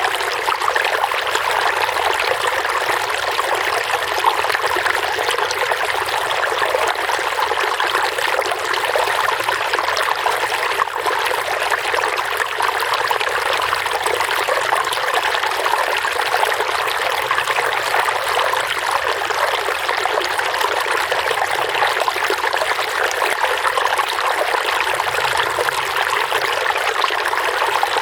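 Running water babbling steadily, like a small stream, with little low rumble.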